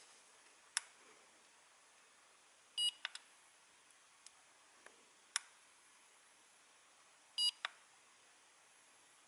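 AOMWAY Commander FPV goggles' buttons pressed, giving a few sharp clicks, with two short electronic beeps from the goggles, about three seconds in and again near the end, as modes and menu settings are switched.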